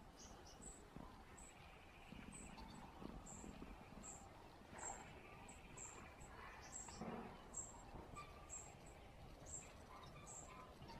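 Faint, short, high-pitched chirps repeating evenly about one and a half times a second, from a small animal calling over quiet outdoor background.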